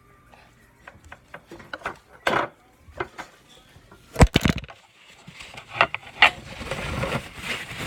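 Pancake batter being stirred in a mixing bowl: a utensil scraping and knocking against the bowl, with a few sharp knocks about four seconds in and steadier scraping after that.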